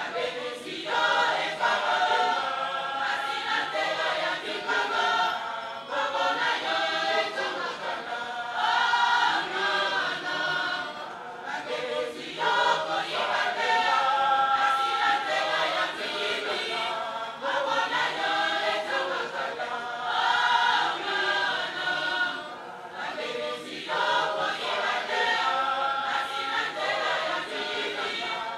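Mixed church choir of men and women singing a hymn together, in phrases separated by short pauses for breath.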